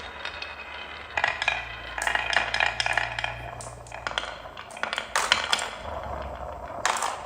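Marbles rolling and clattering down a wooden marble run, a stream of quick clicks and clacks with some ringing knocks, thickening about a second in.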